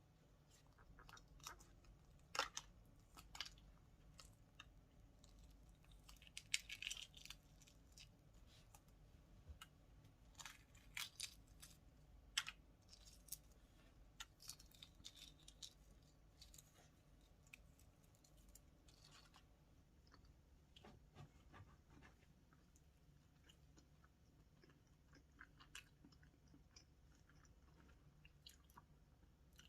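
Faint eating sounds: scattered crunches and small clicks of food being chewed, busiest in the first half and sparser later.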